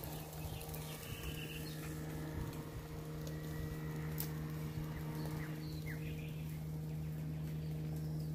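Steady low hum through the yard, with a few faint short bird chirps about three and six seconds in.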